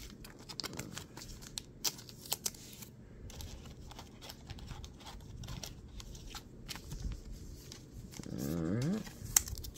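Scattered light clicks and rustles of trading card packs, cards and tin parts being handled, with a short rising tone about eight seconds in and a sharp click just after it.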